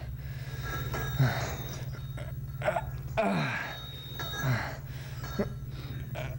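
A man straining at a bench press, letting out several short grunts and gasps that fall in pitch, over a steady low hum.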